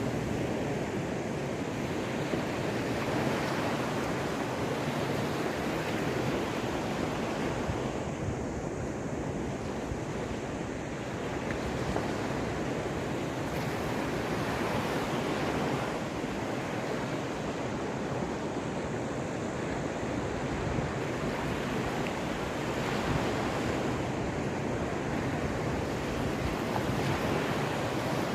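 Caspian Sea surf: waves washing ashore in a steady rush that swells and eases, with some wind buffeting the microphone.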